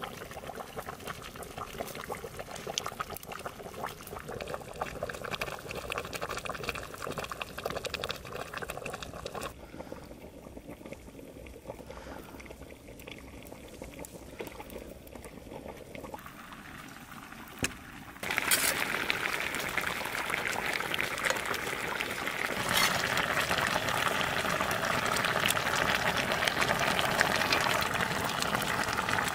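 Lamb neck stew boiling in a cast-iron pot over a wood fire: a quieter fine crackling first, then a loud, steady bubbling that starts suddenly a little past halfway and grows louder again later.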